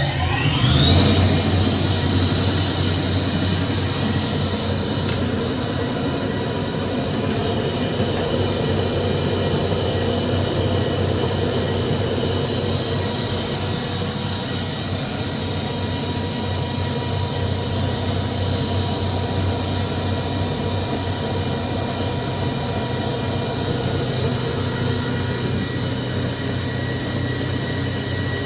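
Kaeser SM11 7.5 kW rotary screw air compressor running up just after starting, its whine rising over the first second, then running steadily on load with a high whine over a low hum as it builds pressure in the air receiver.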